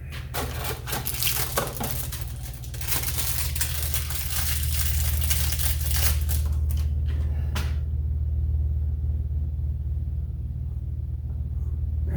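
Clicks, light clinks and scraping of hand work on a dirt bike wheel hub as the grease seals are pushed in, with a denser rustling scrape from about three to eight seconds in. A steady low hum runs underneath.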